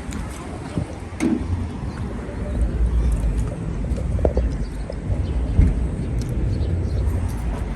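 Car driving, its low engine and road rumble heard from inside the cabin, with a few small knocks and rattles.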